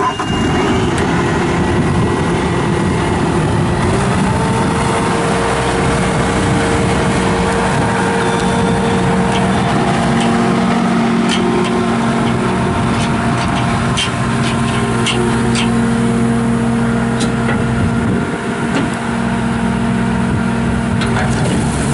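Bobcat S650 skid steer's diesel engine running steadily with the Brushcat rotary brush cutter attached, its note stepping up about four seconds in, with scattered sharp ticks partway through.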